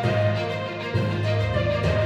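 Theme music: a melody over held bass notes, moving to a new chord about a second in.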